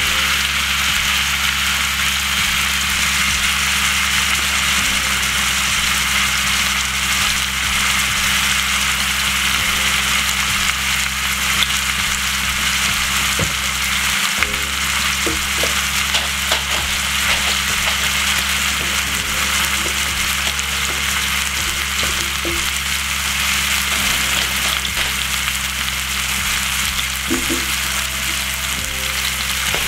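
Marinated joint of lamb frying in a little oil in a non-stick pan over medium heat: a steady sizzle with faint scattered crackles.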